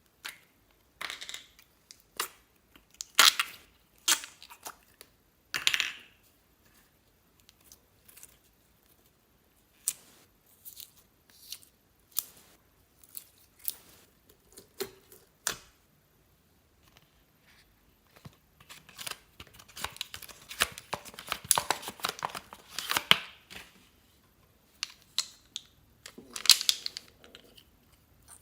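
Slime being squeezed, stretched and kneaded by hand: irregular sticky crackles, clicks and small pops, coming thick and fast for a few seconds past the middle.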